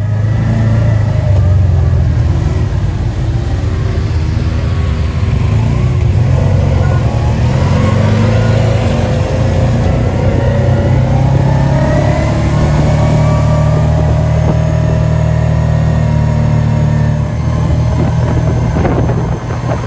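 Side-by-side UTV engine running under way, heard from on board, its pitch rising and falling as the vehicle speeds up and slows down.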